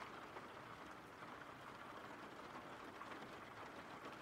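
Faint steady rain: a continuous even hiss with scattered light drop ticks.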